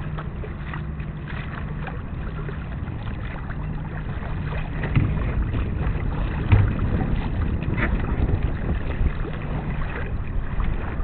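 Wind buffeting the microphone and water noise aboard a sailboat under sail, a low rumble that grows louder about halfway through, with a couple of low thumps.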